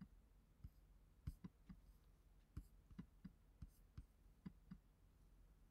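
Faint computer mouse clicks, a dozen or so spaced irregularly.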